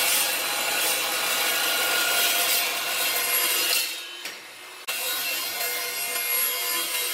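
Evolution metal-cutting chop saw cutting steel, the spinning blade giving a steady whine over a grinding rasp. The sound eases off for about a second a little past the middle, then the blade bites into the metal again.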